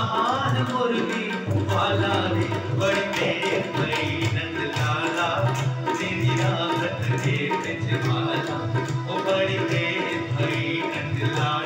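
Tabla played in a steady rhythm over an electronic keyboard holding chords and a melody line, as accompaniment to a Hindi devotional bhajan.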